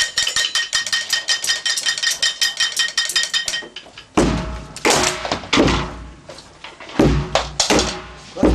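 Improvised percussion played with sticks on a plastic barrel and other found objects. A fast, even metallic tapping of about seven or eight strikes a second, with a ringing tone, stops about three and a half seconds in. Loud, irregular heavy thuds and clatters follow.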